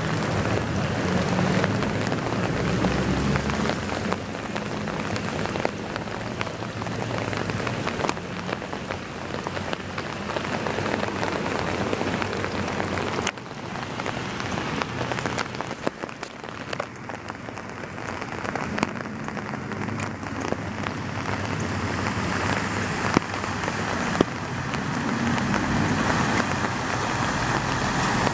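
Heavy rain pouring down steadily, a continuous hiss of water. The low hum of a vehicle passing is heard in the first few seconds and again near the end.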